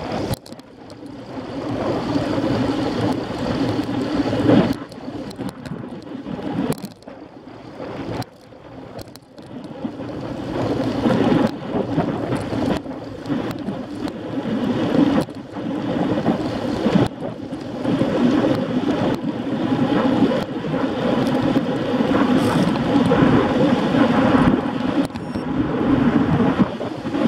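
Wind buffeting the microphone of a camera on a moving bicycle, with road noise underneath; the rushing rises and falls in loudness, with occasional brief knocks.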